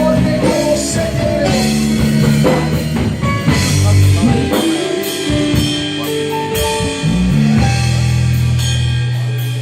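Church worship band playing under the service: a drum kit and guitar over long held low chords.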